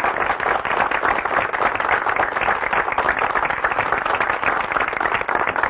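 Audience applause: many people clapping together at a steady level.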